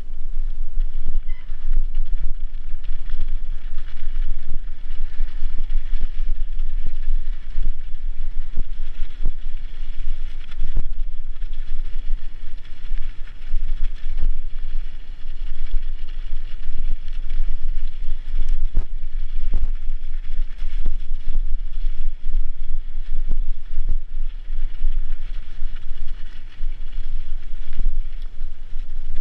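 Bicycle ridden over a snow-covered trail, heard from a camera mounted on it: a steady low rumble of wind and vibration on the microphone, with tyre noise on the snow and frequent small knocks over bumps.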